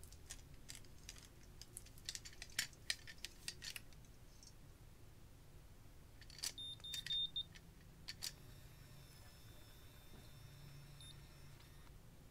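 Conair Curl Secret automatic hair curler being handled: a quick run of light plastic clicks and rattles as it is lifted and clamped onto a lock of hair, then a short steady beep about six and a half seconds in, the curler's signal during its timed curl, followed by a faint high whine.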